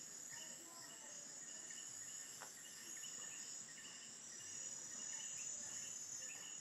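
Tropical night chorus of insects and other night critters: a steady high-pitched drone with many short, repeated chirping whistles overlapping, about two a second.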